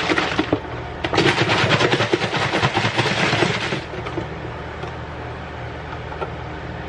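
Coconut milk glugging out of a carton into a glass blender jar onto frozen banana chunks for about three seconds, stopping about four seconds in. A low steady hum runs underneath.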